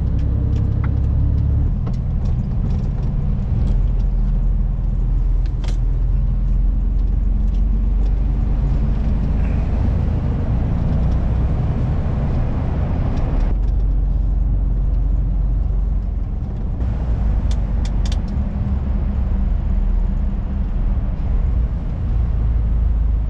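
Mercedes-Benz truck's diesel engine and tyres rumbling steadily while driving, heard from inside the cab. A few sharp clicks sound early on and again near the end, and the higher road hiss drops away a little past halfway.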